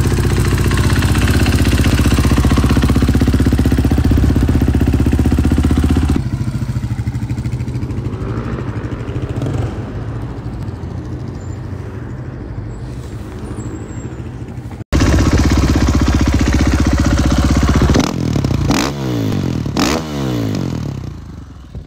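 Husqvarna supermoto's single-cylinder engine running in several short takes: steady and loud at first, quieter for several seconds, then revving up and dropping back several times near the end.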